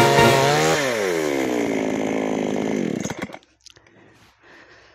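Promo PSG 45-15 two-stroke chainsaw running at full throttle in a log, then its engine note falls steadily over about two seconds and dies away about three seconds in as the saw stops, leaving only faint rustling.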